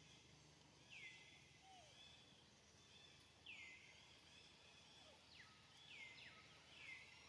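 Faint outdoor ambience with a bird repeating a short call that sweeps down and then levels off, four times, the last two close together near the end.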